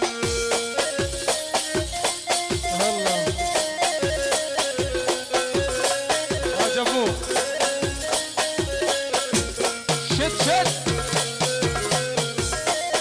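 Live Iraqi wedding-party band music: a keyboard melody over a steady drum beat, with deep kick-drum hits that drop in pitch and a shaker-like rattle.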